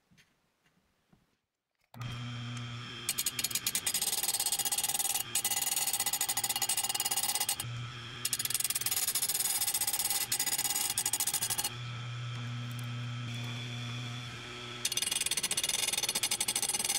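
Oregon 520-120 bench chain grinder: the motor starts about two seconds in, then the spinning wheel grinds the saw chain's cutting teeth in bouts of several seconds, each a rapid rattle with a high hiss. Between bouts the motor hums alone, once briefly and once for about three seconds.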